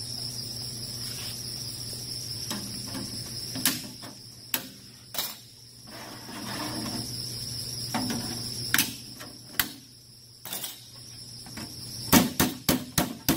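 Sheet-metal duct being handled, with a few scattered single knocks, then near the end a rapid run of hammer blows, about five a second, on the galvanized duct's drive cleat joint. A steady high-pitched whine runs underneath.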